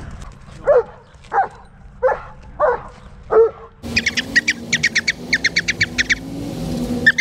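A dog barks five times in the first half, each bark about two-thirds of a second apart. After that comes a fast run of short, high-pitched chirps over a low steady hum.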